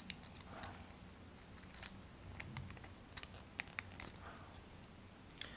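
Scattered light clicks and taps of the hard plastic parts of a Takara Tomy MP-20 Wheeljack transforming figure being handled and moved at its joints, some sharper clicks coming in a quick cluster a little over two seconds in.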